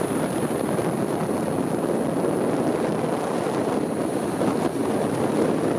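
Steady rush of the propellers and rotor wash of a DJI S1000 octocopter, picked up by the camera it carries, mixed with wind on the microphone. A thin, steady high whine sits above it.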